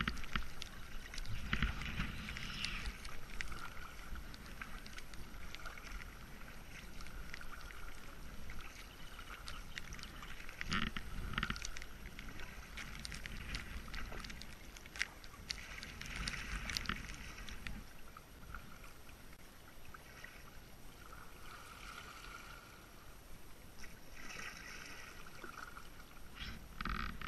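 Kayak paddling on a river: paddle blades dipping and splashing, and water washing against the hull, with a few louder splashes.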